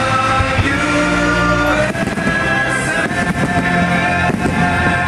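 Loud music playing, with aerial firework shells going off over it in a few sharp reports about two, three and four seconds in.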